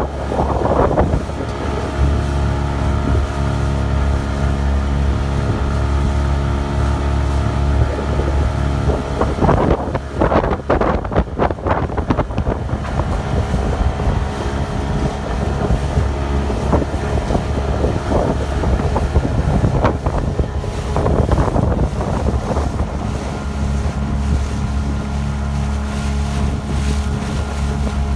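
A small open boat's motor runs with a steady hum at cruising speed. Wind on the microphone and water rushing and splashing against the hull surge over it about ten seconds in and again past twenty seconds.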